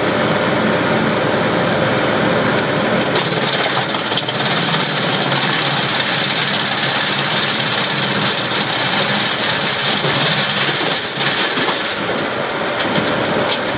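Bandit Model 100 wood chipper's Cummins 4B four-cylinder diesel engine running steadily. From about three seconds in, wood is being chipped, adding a rushing hiss of chips blowing out of the discharge chute, which dies away about eleven seconds in.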